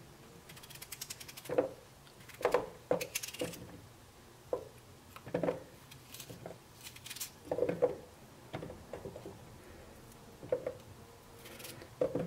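A knife cutting through a raw potato held in the hand, with crisp cuts, and the large chunks dropping with irregular knocks into a stainless steel bowl.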